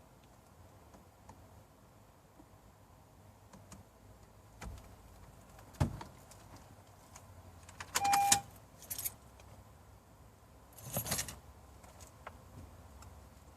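Handling noises: a single knock, then a rattling clatter with a short beep about eight seconds in, and a jangling rattle near eleven seconds.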